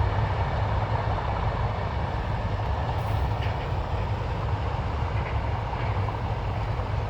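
A slow freight train of scrap wagons hauled by a Class 37 diesel, rolling past with a steady low rumble and a few faint high squeaks from the wheels.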